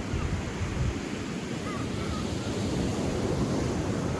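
Steady rushing noise with a heavy low rumble, with a few faint short chirps above it.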